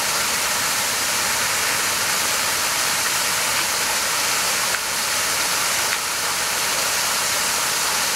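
Steady rain falling, an even hiss, with two small clicks about five and six seconds in.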